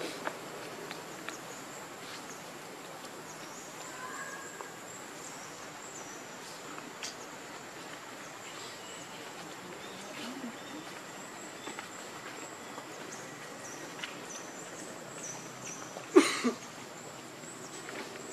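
Outdoor ambience of insects droning with a steady high tone, with short high chirps scattered through. A sudden short loud noise comes once, near the end.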